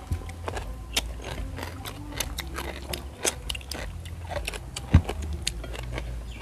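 People chewing crunchy food and chopsticks clicking against porcelain rice bowls, in short irregular crackles and taps, with one sharper knock about five seconds in.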